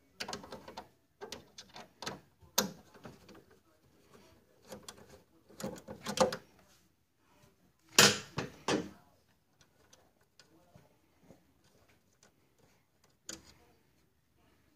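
Plastic clicks and knocks from handling the lamp assembly of a DLP television as it is undone and pulled out. The knocks come in small clusters, the loudest about eight seconds in, with little after that.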